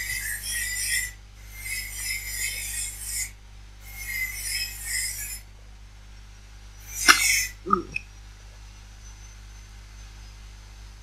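Neighbour's angle grinder grinding in three rasping runs of about two seconds each with short breaks, then a short louder burst about seven seconds in.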